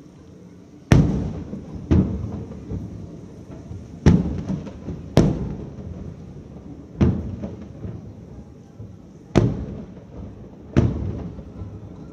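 Aerial firework shells bursting: seven sharp booms at uneven intervals, each trailing off over about a second.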